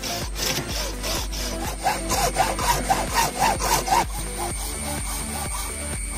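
Hacksaw cutting through a coconut shell in quick back-and-forth strokes, about four a second at their fastest. The strokes end about four seconds in.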